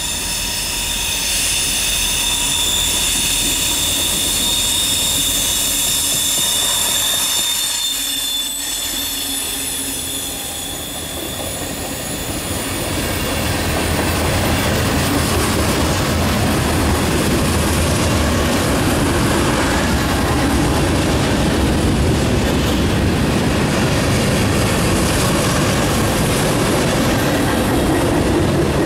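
Short Norfolk Southern freight train coming through a junction. For the first few seconds its wheels give a high, steady squeal. From about twelve seconds in the freight cars roll close past with a steady rumble and the clatter of wheels over the rail joints.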